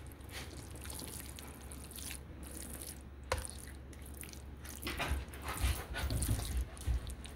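Metal spoon stirring a wet mash of shredded chicken, sweet potatoes, carrots, rice and gravy in a stainless-steel bowl, squelching and sloshing. One sharp click a little past three seconds in, and the stirring grows louder near the end.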